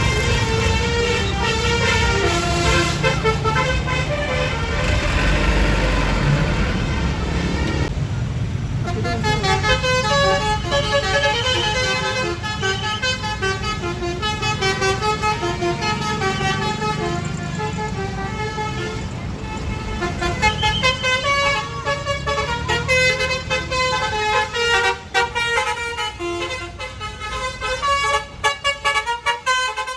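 Bus Basuri musical horn playing a tune: a long run of horn notes stepping up and down in pitch, over the low rumble of the engine and road.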